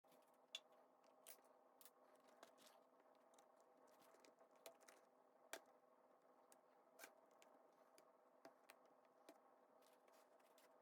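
Faint, scattered light clicks and taps from a laptop being handled, roughly one a second, over a faint steady hum.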